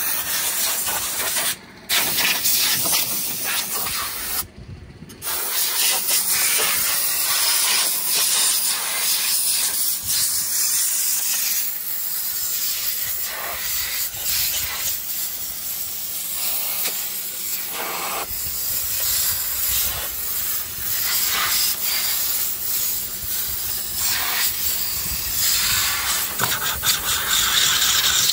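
Compressed-air blow gun hissing as it blasts dust out of a tractor's engine compartment. The blast stops briefly twice in the first few seconds, then runs on unevenly.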